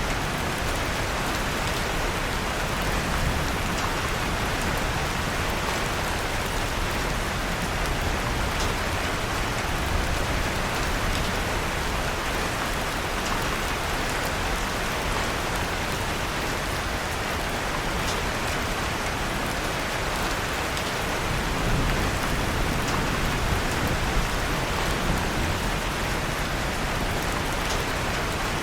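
Steady rain falling, an even hiss, with scattered small crackles of a wood fire in a fireplace.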